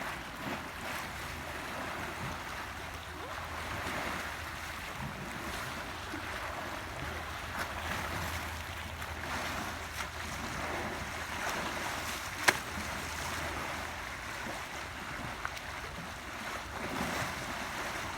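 Pool water sloshing and splashing as an elephant plays and swims in it, a steady wash with small surges. One sharp click about twelve seconds in.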